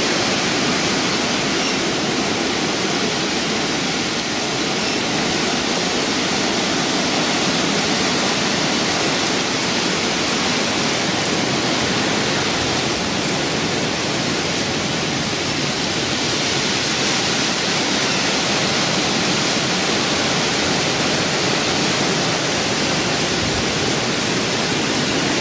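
Hurricane wind and rain rushing steadily through tall trees, a loud unbroken roar of noise at the height of the storm.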